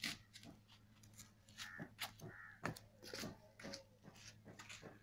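Crows cawing over and over in short calls, over a faint steady low hum.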